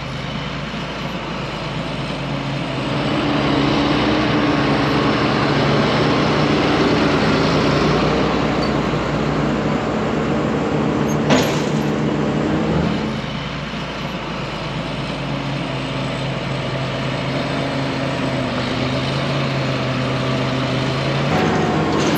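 Diesel engine of a cotton harvesting machine running under hydraulic load as its basket lifts and tips a load of cotton into a module builder. The engine grows louder a few seconds in and eases off about two-thirds of the way through. There is a single sharp metallic click near the middle.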